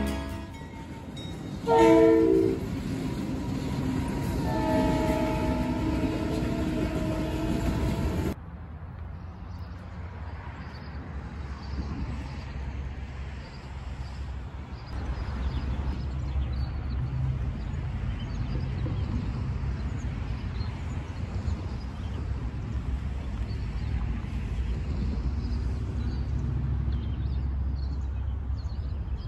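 Diesel freight locomotive horn blowing a loud chord about two seconds in, with fainter horn tones until a sudden cut. After the cut, a steady low rumble of a train's diesel engines runs on.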